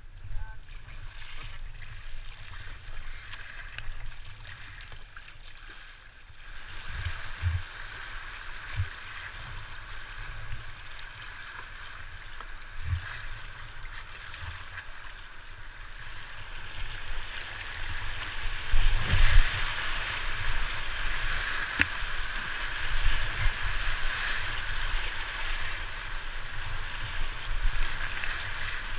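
River water rushing and splashing around a kayak as it is paddled, the rush growing louder over the second half as the boat enters a whitewater rapid. Irregular low thumps on the microphone.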